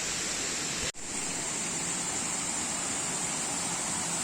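Steady rushing noise of a waterfall, broken by a brief gap about a second in.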